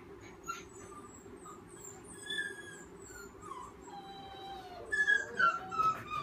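Black puppy whimpering and whining in thin, high-pitched cries, faint at first, then a louder run of falling whines near the end. The puppy is fearful of people and is being handled on a leash.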